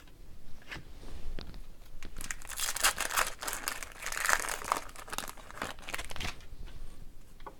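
Wrapper of a hockey card pack crinkling and tearing as the pack is opened and handled, in irregular rustles that are densest in the middle few seconds, with a few small clicks before.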